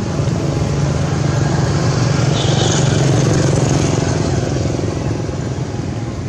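A motor vehicle's engine running steadily nearby, its low hum swelling to a peak about three seconds in and then fading, like a vehicle passing by.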